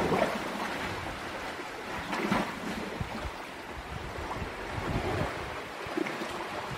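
Sea surf washing against a rocky shore, a steady rushing wash with some wind on the microphone.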